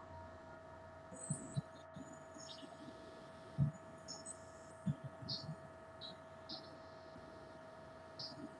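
Steady electrical hum with a whine of several fixed tones, and a few faint soft knocks scattered through it.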